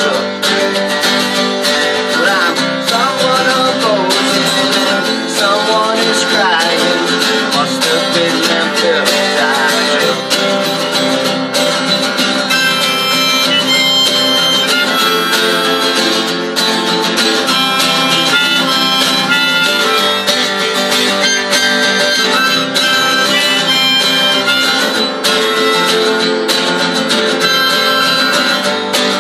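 Harmonica played over two strummed acoustic guitars in an instrumental break of an outlaw country song.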